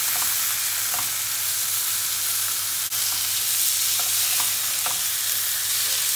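Beef tenderloin steaks searing in a hot grill pan, sizzling steadily.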